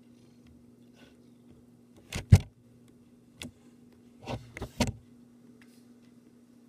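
A handful of knocks and rubbing bumps from a dog's furry body brushing against the camera: a loud double knock about two seconds in, a lighter one after, then three more in quick succession. A steady low hum runs underneath.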